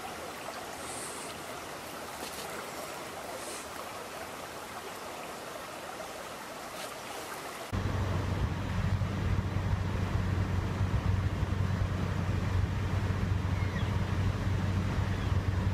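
Steady rushing of a shallow stream flowing over gravel and weed. About 8 seconds in the sound cuts abruptly to a louder, low rumble of wind buffeting the microphone.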